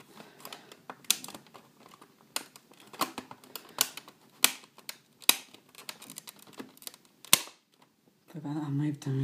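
Plastic disc case and disc holders being handled: a string of irregular sharp clicks and taps, with one louder snap about seven seconds in.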